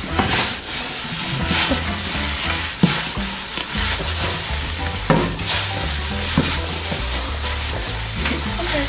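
Gloved hands squishing and kneading raw ground beef mixed with egg, barbecue sauce and cheddar in a stainless steel bowl: a steady wet, crackly squelching with the rustle of plastic gloves, and a few knocks.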